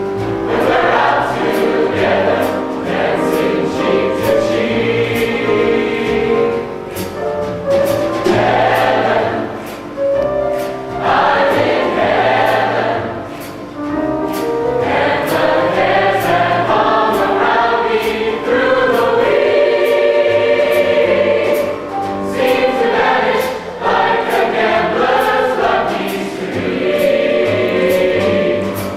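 A choir singing in harmony, with phrases of several seconds that rise and fall.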